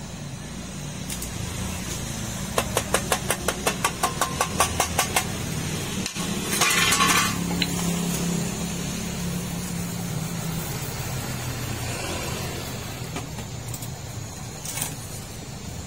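A rapid run of metal taps, about five a second for two and a half seconds, as a brass radiator upper tank is knocked loose from its header while a butane torch softens the solder seam. About six seconds in there is a short loud burst of hiss, over a steady low hum.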